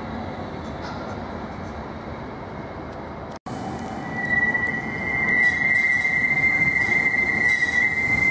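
CAF Urbos 3 tram's wheels squealing as it takes a tight curve of street track: a steady high-pitched squeal that is faint at first and becomes loud about halfway through, over the low rumble of the tram. The sound cuts out for an instant about a third of the way in.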